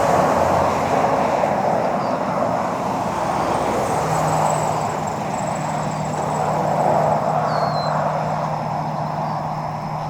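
Road traffic: the steady tyre and engine noise of passing vehicles, swelling and easing, with a low engine hum coming in about four seconds in. A faint bird chirp near the end.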